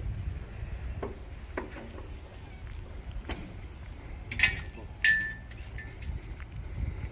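Two sharp clinks about two-thirds of a second apart, the second ringing briefly, over a constant low rumble and scattered faint ticks.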